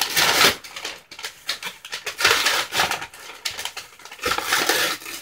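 Brown kraft paper crinkling and rustling in irregular bursts, several times over, as the paper wrapping is pulled and crumpled off a shipped potted plant.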